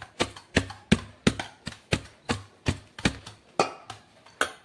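A metal pestle pounding cream biscuits to crumbs in an aluminium bowl, a steady run of strikes about three a second that stops just before the end.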